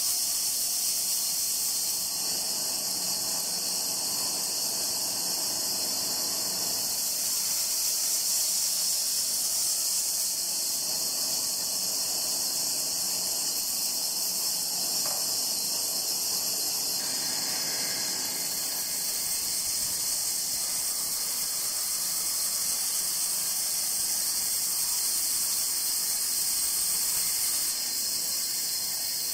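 Bandsaw blade cutting through a rosewood blank, a steady high hiss.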